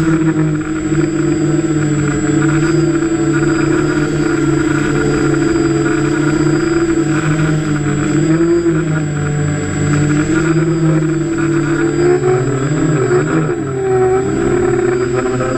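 Motors and propellers of a radio-controlled model aircraft, heard from the camera it carries: a steady hum whose pitch wavers slightly, shifting up and down more near the end, with a thin high whine above it.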